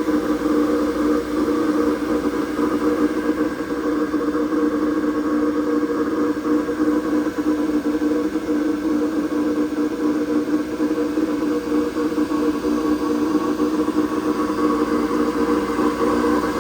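Amada Togu III automatic punch and die grinder running under power, a steady whir of its motor and spinning wheel with a constant pitch.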